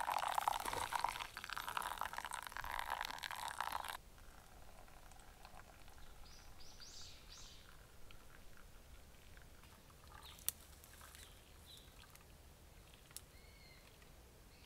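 Water pouring and splashing for about four seconds, cutting off abruptly. Then a quiet forest background with a few short bird chirps and two sharp clicks.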